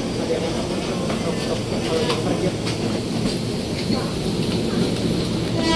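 KRL commuter electric train running through the station: a steady rolling noise with scattered faint clicks.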